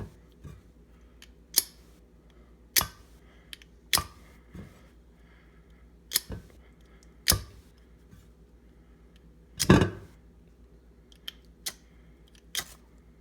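Scraper striking the ferrocerium fire-starter rod of a paracord survival bracelet, about a dozen sharp scrapes roughly a second apart, throwing sparks onto tissue. The longest and loudest scrape comes about three-quarters of the way through.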